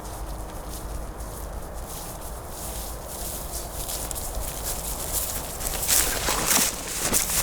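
Footsteps on a trail, growing louder, with sharp crunching steps about two to three a second near the end over a low steady rumble.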